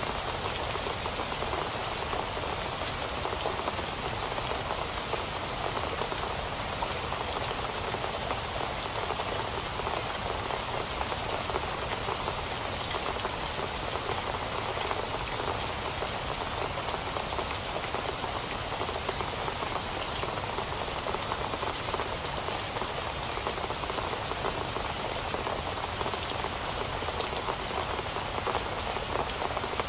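Steady rain falling on a surface, an even hiss of many small drops with faint individual drop ticks. It does not change.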